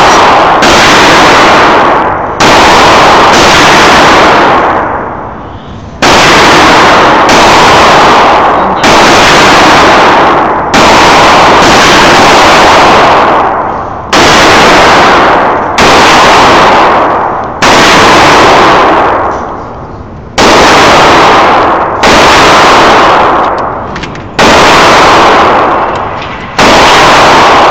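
Gunshots in an indoor shooting range, a single loud shot every second or two. Each crack is followed by a long echo off the range walls.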